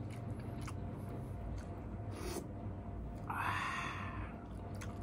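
A person chewing a mouthful of noodles with faint small clicks, then a breathy open-mouthed exhale lasting about a second, a little past three seconds in.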